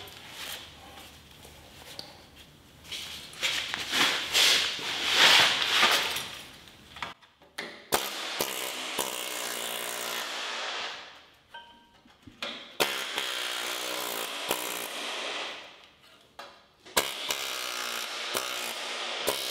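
Loud irregular scraping and clatter of metal against metal. Then a handheld pneumatic tool is run three times in bursts of a few seconds, working at the edge of the old floor pan on a VW Beetle chassis. Each burst starts abruptly at a steady pitch and winds down when the trigger is let go.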